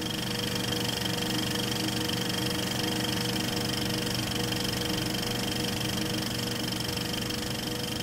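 A steady, even hum made of several held tones, like a machine or electrical drone, with no change in level.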